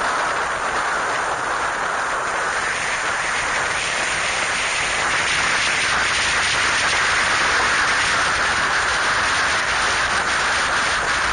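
Steady rushing wind noise on the microphone of a camera riding on a moving motorcycle.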